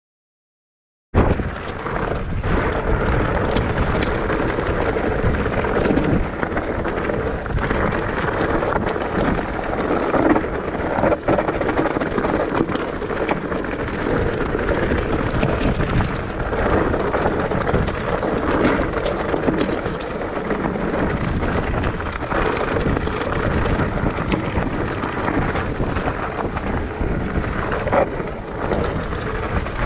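Mountain bike riding over a rough, loose-stone track: continuous rumble and rattle of the tyres and bike over the stones, with scattered small knocks and wind on the microphone. It starts suddenly about a second in, out of silence.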